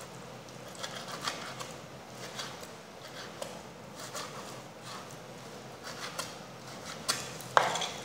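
Chef's knife cutting beef into small cubes on a plastic cutting board: soft, irregular taps of the blade on the board, with a few sharper, louder knocks near the end.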